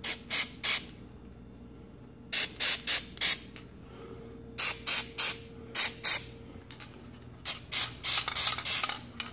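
Aerosol spray lubricant hissing out in short spurts onto garage door hinges, in quick groups of three to five spurts with pauses between.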